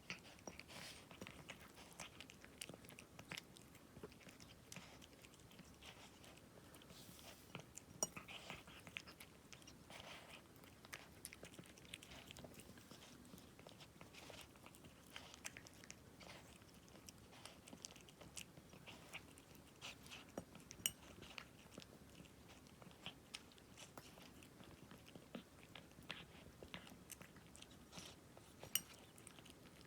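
A cat chewing treats, a string of faint, irregular clicks and bites.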